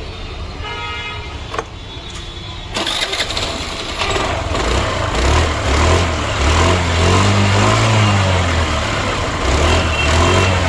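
Honda Activa scooter's single-cylinder four-stroke engine, freshly overhauled, being started: it catches about three seconds in, then is revved up and back down a few times.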